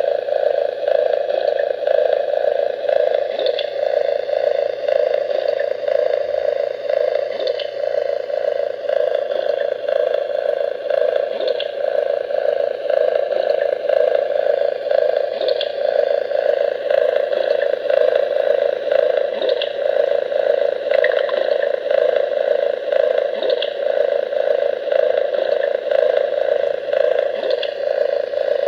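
A Lionel aquarium car's built-in sound effects playing through its small speaker: a steady, rapidly pulsing hum meant as aquarium sounds, with a faint click repeating about every four seconds like a looped recording.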